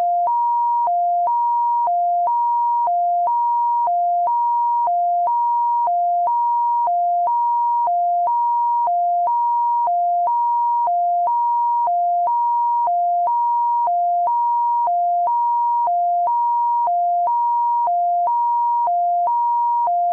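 Synthesized two-tone ambulance siren: a higher and a lower pure tone alternate without a break, about one high-low cycle per second, at an unchanging steady level.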